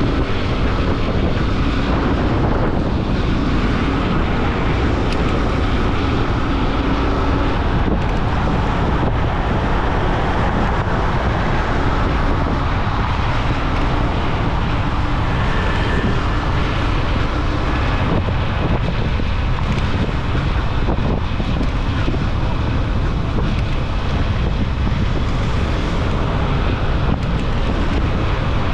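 Steady wind rush on the microphone of a moving motorcycle, with the motorcycle's running and road noise beneath it.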